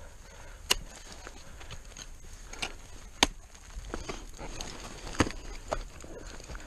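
Ice axe and ice hammer being planted into steep snow, with crampon kicks: a series of sharp knocks and clicks, the loudest three about a second, three seconds and five seconds in.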